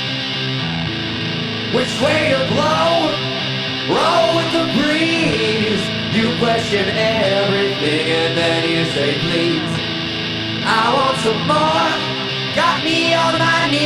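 Garage rock trio playing live: electric guitar with band backing and a sung lead vocal whose lines come in about two seconds in and break off and return a few times.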